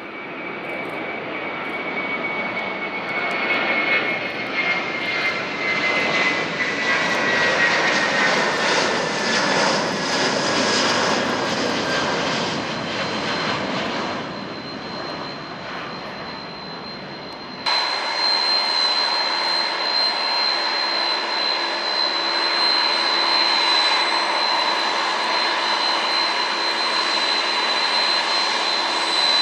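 Boeing 747-400 jet engines passing close by, a loud rush with a whine that falls steadily in pitch. After an abrupt cut about two-thirds of the way in, the jet is heard again with a steady high engine whine over a lower hum.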